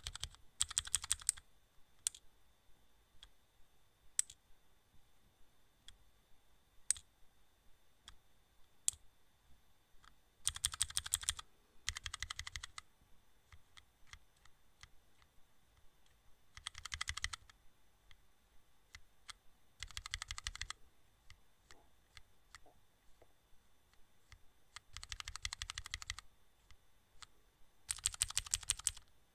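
Rapid, even clicking in short bursts of about a second each, seven or so in all, with single sharp clicks between them; a faint steady high whine sits underneath.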